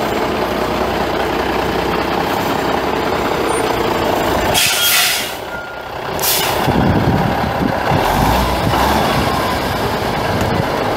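The Cummins N14 inline-six turbo diesel of a 1997 Freightliner FLD120SD truck running steadily. About halfway through the air system gives two short, sharp hisses, and a heavier low rumble follows.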